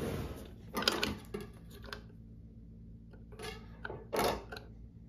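A steel ammo can being handled and turned on a wooden tabletop: short scrapes and light knocks, a cluster about a second in and another near four seconds in, with quiet fiddling between.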